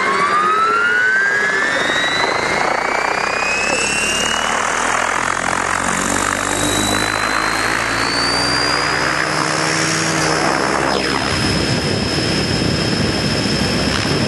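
Radio-controlled model aircraft engine: a loud whine that climbs steadily in pitch for about ten seconds, then holds a high, steady note.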